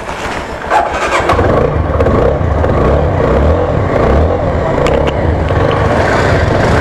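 TVS Apache 4V single-cylinder motorcycle engine running as the bike gets under way. It gets louder just under a second in, then holds a steady low hum with a rushing noise over it.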